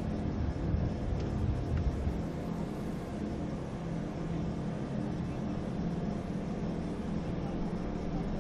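Steady outdoor background rumble on a racetrack grid, with a faint low hum and no distinct events.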